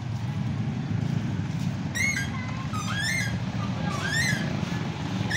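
Three short bird calls that rise and fall in pitch, about two, three and four seconds in, over a steady low rumble.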